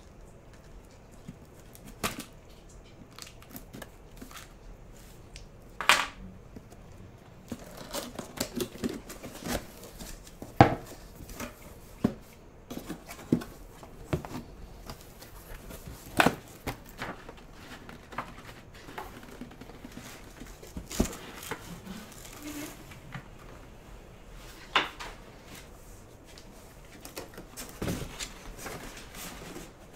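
A cardboard monitor box being opened and unpacked: scattered knocks, scrapes and rustles of cardboard flaps and packing, with a few louder thumps.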